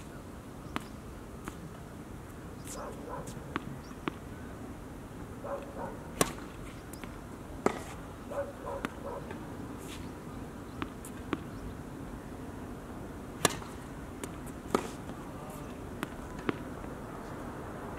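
Tennis rally on a hard court: tennis balls struck by rackets and bouncing, heard as sharp pops at irregular intervals, the loudest about six seconds in and about thirteen and a half seconds in.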